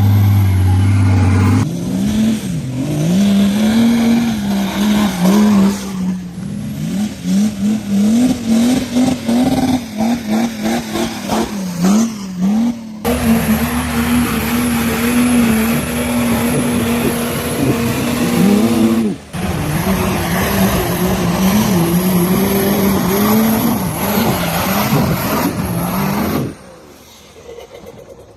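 Off-road 4x4 engines revving up and down hard, in several short clips that cut abruptly from one to the next; the sound drops much quieter near the end.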